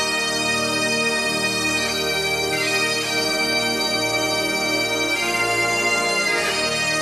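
Bagpipes playing a slow melody of long held notes over their steady drone.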